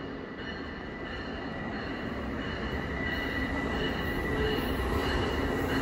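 Amtrak Northeast Regional train approaching along an underground station platform, its rumble growing steadily louder, with a steady high-pitched wheel squeal from the rails.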